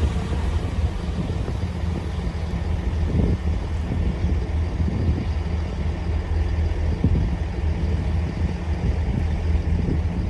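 Diesel train engine idling: a steady, even low rumble.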